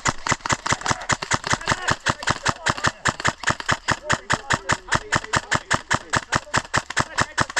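Airsoft gun firing a long, unbroken string of rapid, evenly spaced shots, about seven a second.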